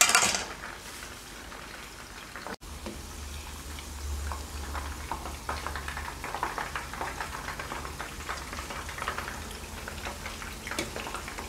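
Hot oil sizzling with many small pops as shrimp and sweet potato fritters deep-fry in a pan. There is a short louder burst at the very start.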